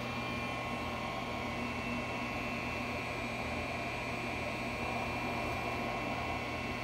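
Steady electrical hum of a powered-up Syil X7 CNC mill, with a thin high whine above it.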